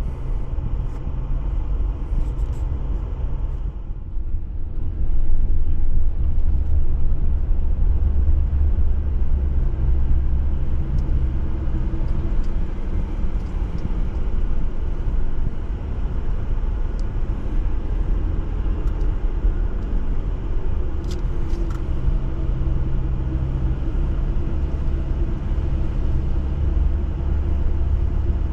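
Jeep being driven, its engine giving a steady low rumble throughout, with a few faint clicks.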